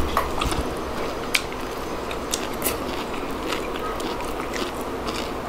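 People chewing food at close range, with scattered small mouth clicks and smacks over a steady background hiss.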